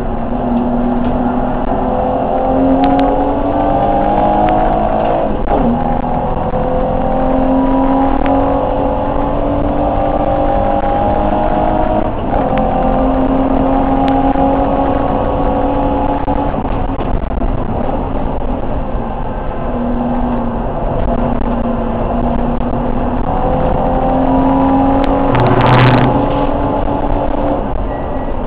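BMW E30 325 race car's straight-six engine heard from inside the cabin, running hard at high revs. Its pitch climbs under acceleration and drops sharply at gear changes, twice in the first half. Near the end there is a brief loud bang with a low thump.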